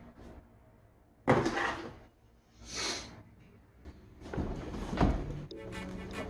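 Workshop handling noises: a sudden knock a little over a second in, a short scrape near the middle, then scattered clattering and knocking toward the end.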